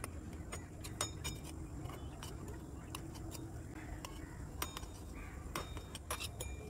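Small metal spatula clinking and scraping against a miniature metal kadai as cashews are stirred in ghee. The clicks are scattered and irregular.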